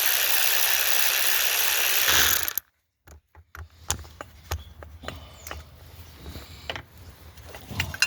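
A handheld power tool runs steadily while undoing a fastener on the engine, then stops abruptly about two and a half seconds in. Light metallic clicks and taps of parts being handled follow.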